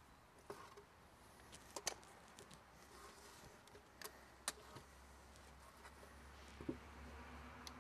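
Quiet handling sounds: a few sharp, separate clicks and knocks as a tape measure is pulled and pressure-treated lumber boards are handled and shifted, over a low steady hum.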